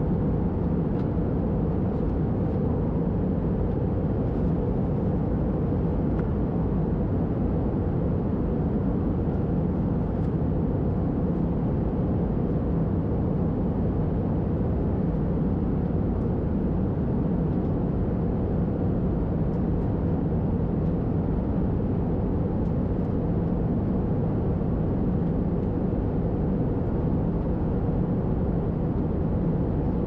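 Steady in-flight cabin noise of an Airbus A320-214 heard from a window seat: airflow and its CFM56 engines make a constant low drone with no change in level.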